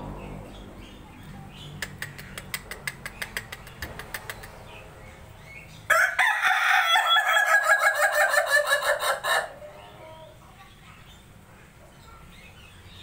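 Ayam ketawa (Indonesian laughing chicken) rooster crowing once, about six seconds in: a loud, rapid stuttering run of notes lasting about three and a half seconds, the breed's laugh-like crow.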